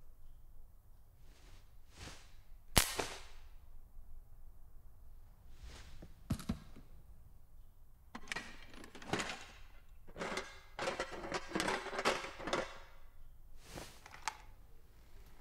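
Sharp mechanical clicks and clunks from a small machine being worked by hand. A single loud click comes about three seconds in, and a quick run of clattering rattles follows between about eight and twelve seconds in.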